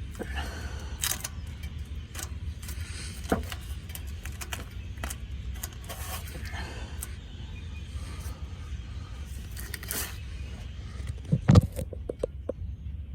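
Hands wrapping exhaust repair tape around an exhaust pipe: scattered scrapes, rustles and clicks over a steady low rumble, with a sharper knock about eleven seconds in.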